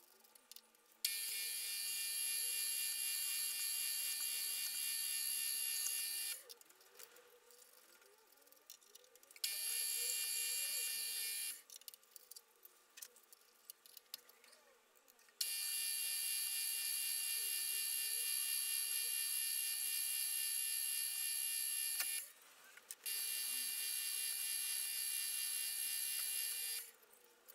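Milling machine spindle running while drilling holes in a metal plate: a steady, high-pitched motor whine with many overtones. It starts and stops four times, with quiet gaps of about one to three seconds between runs.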